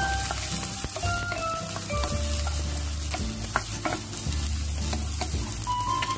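Petai beans, shallots and chillies sizzling in hot oil in a wok while a wooden spatula stirs them, with scrapes and knocks of the spatula against the pan. Background music plays underneath.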